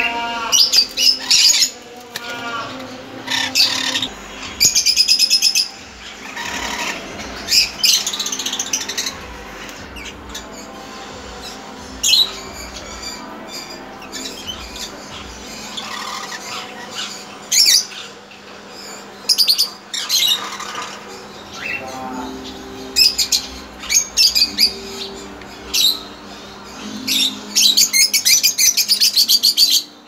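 Small caged parrots calling: repeated sharp, high chirps and screeches in short bursts, with a dense run of calls near the end.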